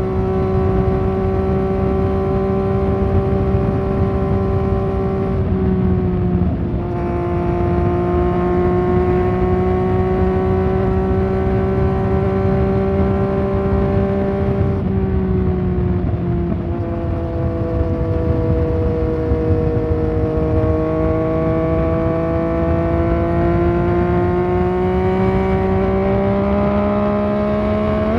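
Yamaha MT-09 Tracer's inline three-cylinder engine running through a Fuse Racing aftermarket exhaust while riding at steady revs, with short breaks in the note about five and fifteen seconds in, the revs sagging a little and then climbing again toward the end. A low rumble of wind and road runs underneath.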